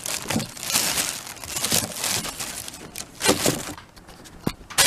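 Thin clear plastic bag crinkling and rustling in irregular bursts as it is handled and pulled off a binocular case. A brief lull about four seconds in is broken by a sharp click.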